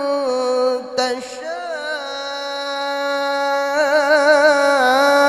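Male Quran reciter's high, ornamented melodic recitation (tilawah): one long drawn-out vocal note with wavering trills, briefly breaking about a second in and then rising in loudness.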